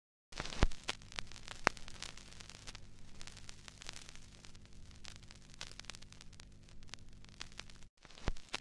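Vinyl record surface noise: steady hiss and crackle with scattered clicks and a couple of louder pops, over a low hum. It drops out briefly near the end.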